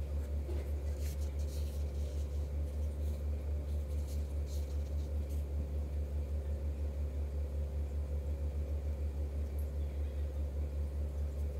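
Steady low machine hum with a rapid, even pulse, and a few faint light clicks in the first half.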